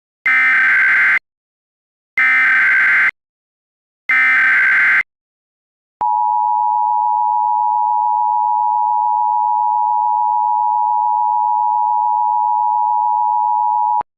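Emergency Alert System SAME header: three screechy digital data bursts, each about a second long and a second apart, then the EAS two-tone attention signal held steady for about eight seconds and cut off sharply.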